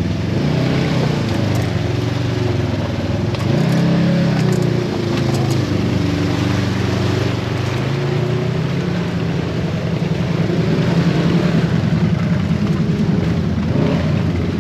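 Off-road side-by-side's engine running under changing throttle while driving over rough terrain, its pitch rising and falling several times.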